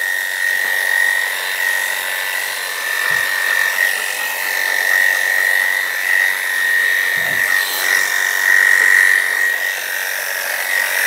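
Electric grooming clippers running with a steady high buzz as the blade shaves a standard poodle's coat close to the skin. Two soft low knocks come about three and seven seconds in.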